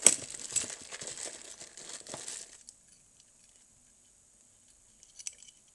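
Plastic packaging crinkling and rustling as it is handled, with a sharp crackle at the start; it stops after about two and a half seconds, and a couple of faint clicks follow near the end.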